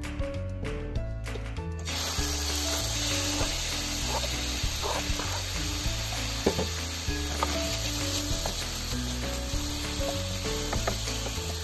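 Sliced pork, green pepper and onion sizzling in a frying pan after being added, with short clicks and scrapes of a wooden spatula stirring them. The sizzling starts about two seconds in, over background music.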